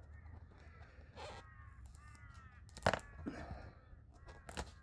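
Crows cawing in drawn-out, falling calls, with two sharp clicks from pliers gripping the screw in the tyre, the first the loudest.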